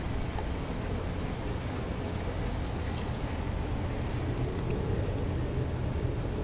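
Steady low rumbling outdoor background noise, with a few faint clicks of a Scottish terrier gnawing a steak bone.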